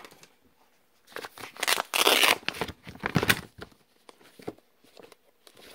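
Paper envelopes and papers rustling and crinkling as they are handled, a run of rustles loudest about two seconds in, then a few lighter ones.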